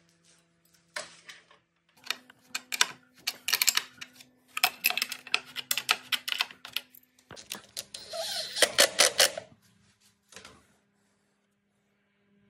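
Irregular metallic clicking and clatter of hand tools: an adjustable wrench working a nut on a threaded rod of a wooden jig, with metal parts knocking together. A rasping scrape runs through the clicks about eight seconds in.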